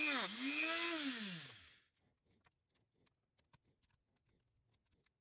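A small power tool's electric motor whining, its pitch repeatedly rising and falling as it speeds up and slows down. It winds down and stops a little under two seconds in, leaving only a few faint ticks.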